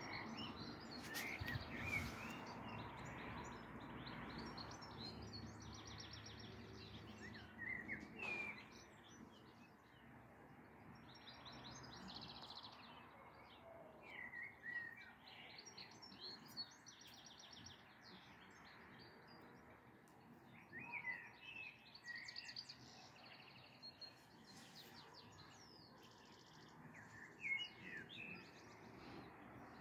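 Songbirds calling and singing in short phrases every few seconds: brief up-and-down chirps and quick, rapidly repeated trills, over faint background noise.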